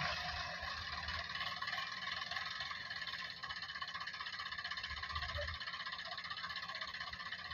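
Diesel engine running steadily at low revs, with a fine rapid pulsing.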